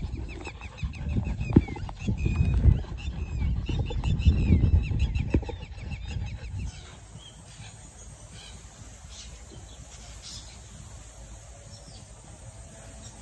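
Birds chirping in quick repeated series over a loud low rumble for the first six seconds, then a quieter stretch with only sparse high chirps after a cut.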